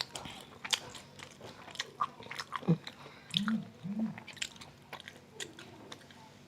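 Close-miked chewing of spicy stir-fried beef tripe and meat: wet mouth clicks and lip smacks, with two short hummed "mm" sounds about three and a half and four seconds in.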